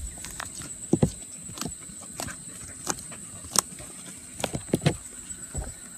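Slime being handled, giving scattered sticky clicks and pops about once or twice a second over a faint steady high whine.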